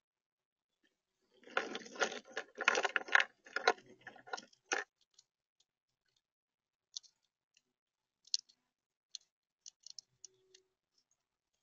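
A grey squirrel handling and gnawing nuts in a plastic tub. About a second in comes a dense run of crunching and rattling clicks lasting some three seconds, then scattered single clicks of nibbling at a shell.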